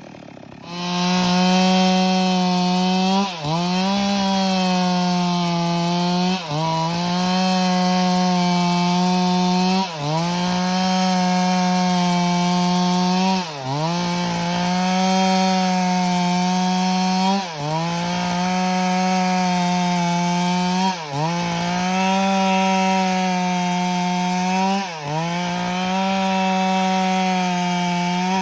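Stihl MS 382 chainsaw with a 25-inch bar cutting wood at full throttle. The engine rises to speed in the first second, then holds high revs, with a brief dip and recovery about every three and a half seconds.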